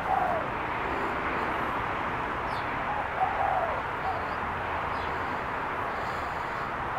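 Spotted dove cooing: a short, falling coo phrase at the start and another about three seconds in, over a steady background hiss.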